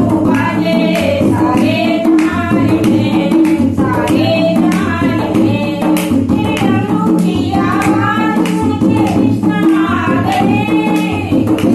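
Two women singing a Hindi devotional bhajan to Lord Shiva, with hand-clapping keeping a steady beat.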